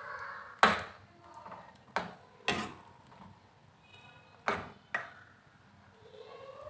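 Steel ladle stirring a thick, creamy curry in a metal pan, knocking sharply against the pan about five times at uneven intervals.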